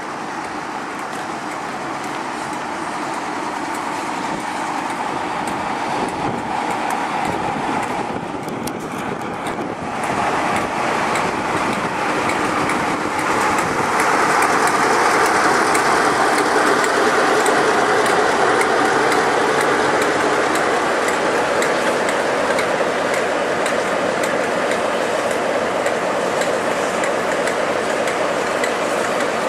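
Class 47 diesel-electric locomotive with its Sulzer V12 diesel engine running as it draws slowly past, hauling a Class 52 'Western' diesel-hydraulic. The engine and the wheels on the rails grow steadily louder as it approaches, are loudest about halfway through as the locomotive passes close by, then carry on steadily.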